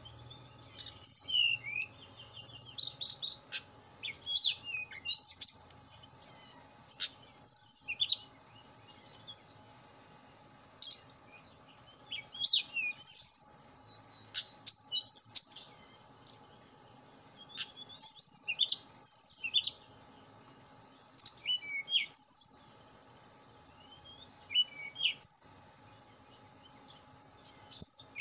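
Tledekan gunung, a blue flycatcher, singing. Bright, high, quick phrases of whistles and twittering notes come every second or two, with short pauses between them.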